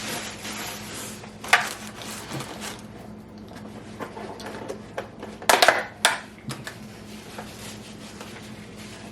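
Tableware being handled during a meal: a sharp clack about a second and a half in, then a cluster of clinks and clatters around five and a half to six seconds, over a faint steady low hum.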